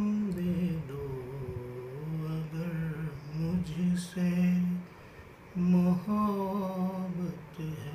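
A man singing a Hindi film song in long, held, wavering notes with no clear words, drawing out its closing line. There is a short break about five seconds in.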